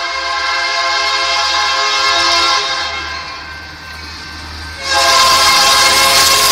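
Locomotive air horn sounding for a grade crossing as the train approaches. One long blast fades out about halfway through, then a second, louder blast starts suddenly near the end, over the low rumble of the oncoming locomotive.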